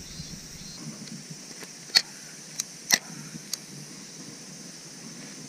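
Four short, sharp clicks and taps, the loudest about two and three seconds in, over a faint steady outdoor hiss.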